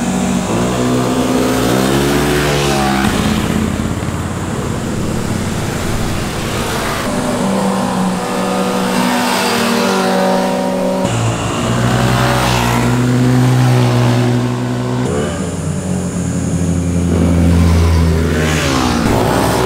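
Motorcycle engines revving as the bikes ride through a corner, pitch rising and falling with the throttle. Several clips are cut together, so the engine note changes abruptly every few seconds.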